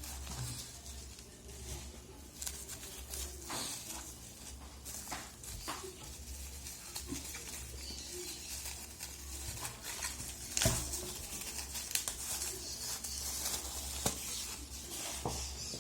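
Phone packaging and accessories being handled: plastic crinkling and rustling with scattered light clicks and taps, over a steady low hum.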